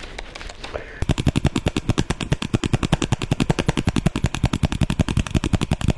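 A rapid, even run of sharp close-miked clicks, about ten a second, starting about a second in: an imitation of ASMR trigger sounds made right into a microphone.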